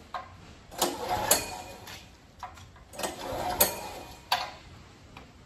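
Recoil starter of a small portable gasoline generator pulled twice, the engine turning over briefly each time without catching, with sharp clicks between pulls. It fails to start because it is not getting fuel, its fuel tap having been set wrong.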